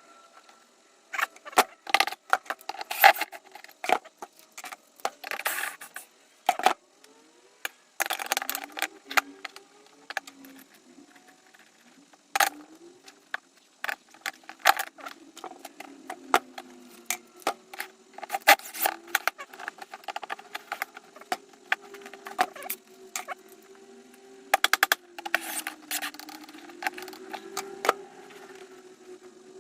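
Irregular clicks, knocks and clatters of hand tools and metal hardware being handled, with short scrapes, over a faint wavering hum.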